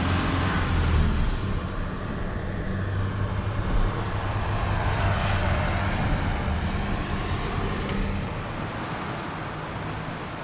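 Truck engine and road noise heard from inside the cab while driving, a steady low hum over a broad rush; the engine hum fades away about eight seconds in.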